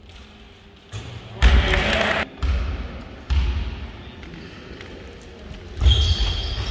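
Basketball bouncing on a gym floor: a few heavy thuds roughly a second apart, with a burst of noise from the hall around the loudest one and a short high squeak near the end.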